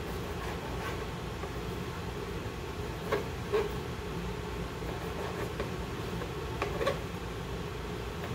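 Kitchen knife dicing raw chicken breast on a plastic cutting board: scattered light taps of the blade on the board, with two pairs of sharper taps about three and about seven seconds in, over a steady low hum.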